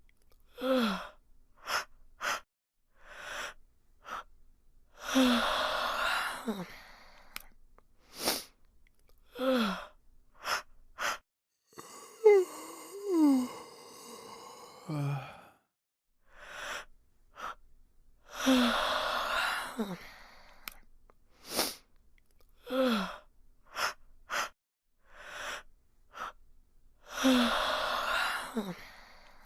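A person yawning again and again: about half a dozen yawns, each a breathy drawn-out breath with a voiced note sliding down in pitch, with short clicks between them.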